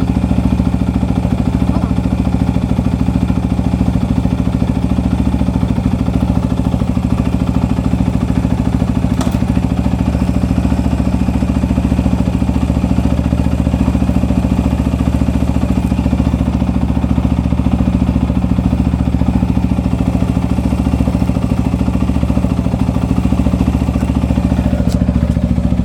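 Royal Enfield Meteor 350's single-cylinder engine idling steadily, with an even low thump.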